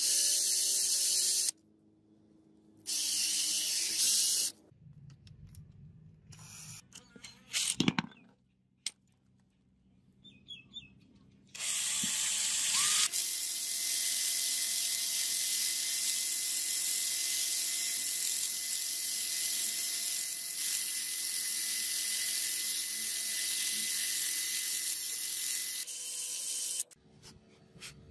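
A cordless drill spins a rusty angle-grinder armature in two short bursts while sandpaper held against it polishes the rotor, giving a high hiss. A sharp knock comes about eight seconds in. From about twelve seconds a power tool runs steadily for some fourteen seconds with a hiss and a faint whine while the armature is cleaned.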